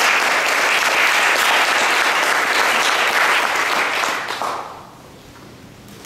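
Audience applauding, the clapping dying away about four and a half seconds in.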